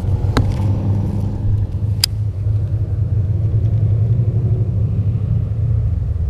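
Wind buffeting the camera microphone: a steady, fluttering low rumble, with two sharp clicks about half a second and two seconds in.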